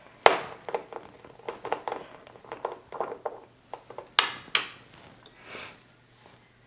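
Glass ink bottle and its metal cap being handled and the cap unscrewed: a run of small clicks and taps, with two sharper knocks a little after four seconds.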